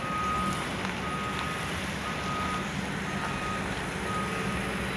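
Vehicle reversing alarm beeping steadily, one single-pitched beep about every second, over the low, steady hum of an engine running.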